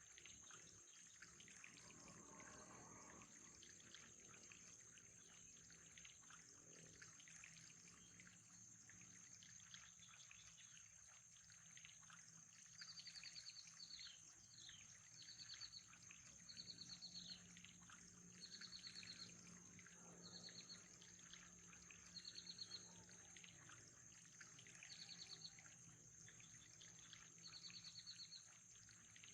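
Faint trickling water, with a bird giving a short, high trilled call over and over, about every two seconds, from about halfway through.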